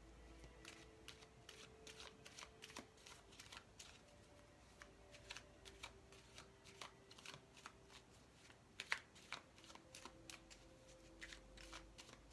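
Tarot cards being shuffled and handled: a quiet run of irregular soft card snaps and flicks, the sharpest about nine seconds in.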